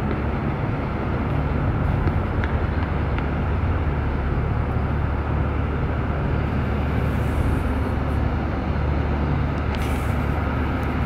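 Monster-truck school bus's engine running, a steady low rumble as it drives slowly around the dirt lot.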